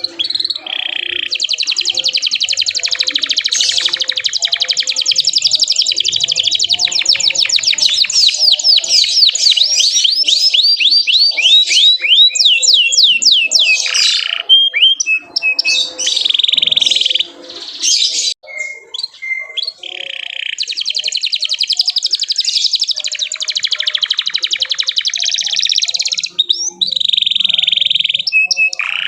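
Domestic canary singing at full voice: long runs of rapid repeated chirps and rolling trills, broken by a few short pauses about halfway through and again near the end.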